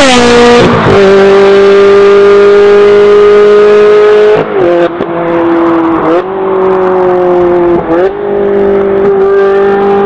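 Ferrari 360 Challenge Stradale's 3.6-litre V8 at high revs, passing close with its pitch falling sharply. Then a steady high-pitched engine note that breaks and jumps in pitch a few times.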